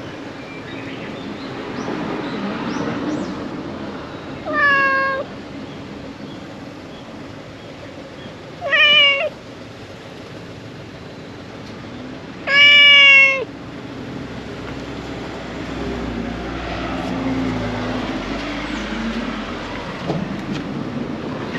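Brown tabby cat meowing three times, about four seconds apart; each meow is a short call that falls slightly in pitch, and the third is the longest and loudest.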